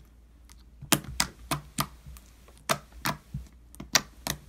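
A finger poking into a lump of light-blue slime on a wooden table: a string of short, sharp, clicky pops, about two a second, starting about a second in.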